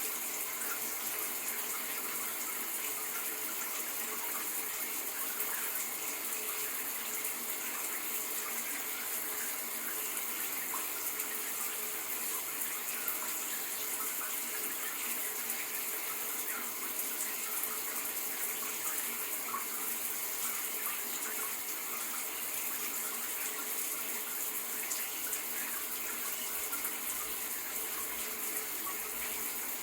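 Shower running steadily, its water spray falling in an even, continuous hiss.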